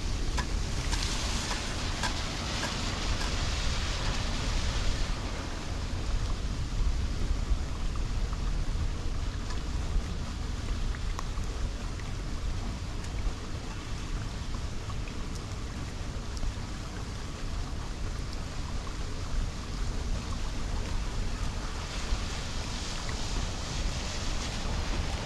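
Steady rain falling on a wet, flooded concrete road, a continuous hiss with scattered drop ticks, under a low wind rumble on the microphone. The hiss swells briefly near the start and again near the end.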